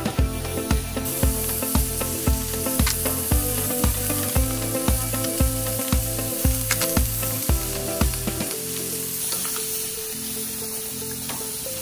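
Buttered Moreton Bay bug halves sizzling on a barbecue hotplate, under background music with a steady beat that gives way to held notes near the end.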